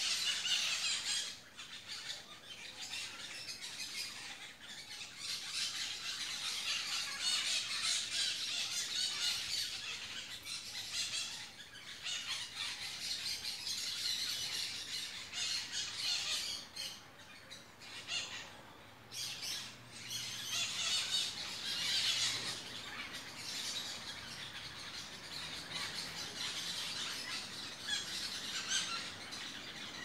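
A flock of small parakeets chattering in the trees: a continuous run of shrill squawks and chirps, with a few brief lulls.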